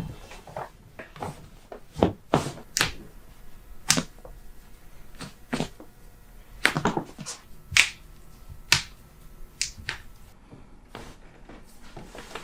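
Chiropractic adjustment: a string of short, sharp, irregularly spaced clicks, pops and thuds of joints cracking and of hands and body moving against the treatment table.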